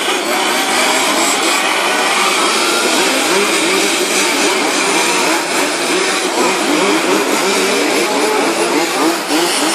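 Several 1:5-scale RC Formula 1 cars with small two-stroke petrol engines racing, their high-pitched engine notes overlapping and rising and falling as they accelerate and lift off through the corners.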